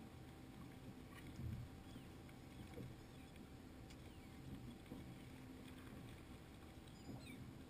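Near silence: a faint low rumble of water and wind around a drifting boat, with a few faint high chirps and light knocks.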